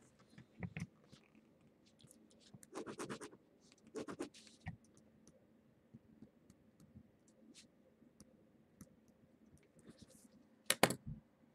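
Faint scattered clicks and a few short scratchy rustles: desk handling noise.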